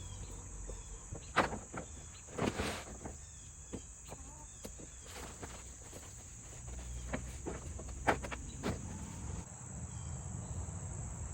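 Insects trilling steadily in a high, unbroken tone, with a few short knocks and rustles from handling, the loudest about a second and a half in and around two and a half seconds.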